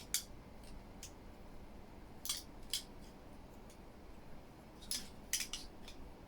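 Small hard parts of a speaker wall-mount bracket being handled and fitted together, giving a few sharp clicks and clacks: one at the start, a pair about two seconds in, and a quick cluster near the end.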